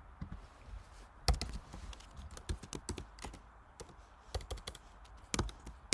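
Typing on a computer keyboard: irregular, quick key clicks, with a few louder keystrokes.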